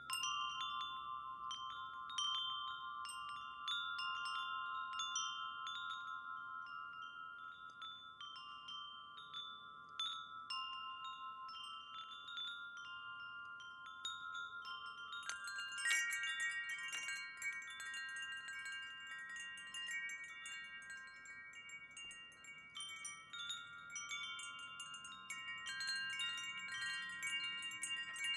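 Wind chimes ringing, with many overlapping sustained metallic tones restruck again and again by light strikes. About halfway through, a louder cluster of strikes brings in higher notes that keep ringing.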